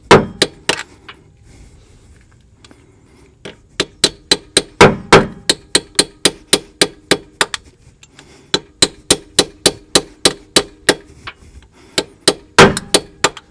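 Metal-on-metal hammer blows driving a tool into the old right-side axle seal of a GM 4T40E/4T45E transaxle, collapsing the seal so it can be pulled out. A few quick strikes, a pause of about two seconds, then steady tapping about three times a second, with a few harder blows.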